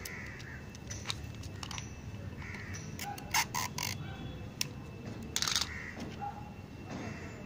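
Crows cawing now and then in the background, a few single caws. Several short, sharp noisy rustles cut in, the loudest about three and a half and five and a half seconds in.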